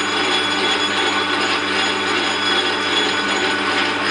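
Metal lathe running under power with a steady whine made up of several held tones, while the tool takes a facing cut across the end of a spinning PVC workpiece.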